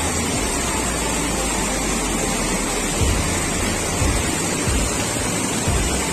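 Rushing water of a river or waterfall, a loud, steady hiss with no let-up. A few low thumps of wind hit the microphone about halfway through and near the end.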